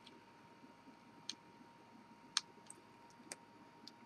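A handful of faint, irregular clicks from fingernails picking at the edge of a thick clear acrylic sheet, working to lift its protective plastic film.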